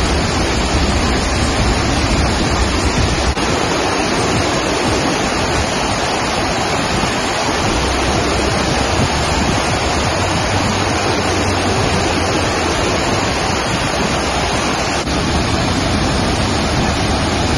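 Sekinoo Falls, a waterfall making a steady, loud rush of falling water.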